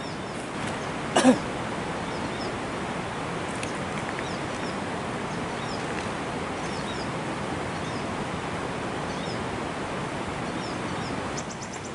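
Steady rush of flowing river water, with faint high bird chirps scattered over it and a single sharp knock about a second in.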